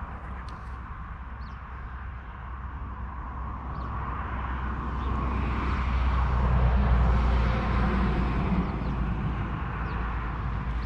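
A motor vehicle passing, its low rumble swelling to a peak about two thirds of the way through and then fading, over faint scattered bird chirps.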